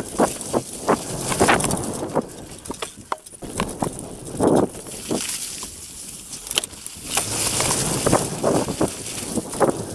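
Mountain bike riding fast along a forest trail: tyres crunching over dirt and dry fallen leaves, with the bike rattling over bumps. It runs quieter for a few seconds in the middle and gets louder again near the end as the bike rolls through thick leaf litter.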